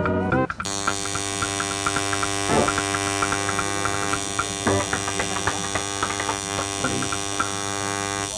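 Coil tattoo machine buzzing steadily as its needle outlines a tattoo on skin. A few faint ticks sound over the buzz.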